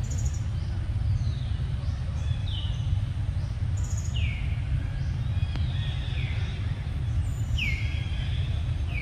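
Birds calling: short, repeated calls that each slide down in pitch, coming more often in the second half, over a steady low rumble.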